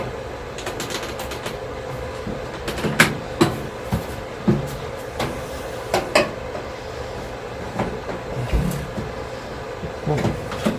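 Scattered clicks and knocks of a microwave's loosened cover being worked and pried off by hand, over a steady low hum.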